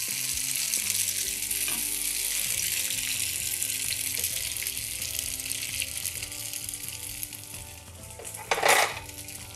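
Spaghetti frying in hot oil in a nonstick pan as beaten egg with chopped vegetables is poured over it: a steady sizzle that eases off toward the end. Near the end there is one brief, louder rush of noise.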